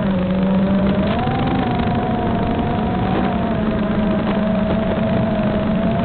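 A radio-controlled aircraft's motor runs with a steady droning tone. Its pitch rises about a second in, then slowly sags. Heavy wind noise on the microphone runs underneath it.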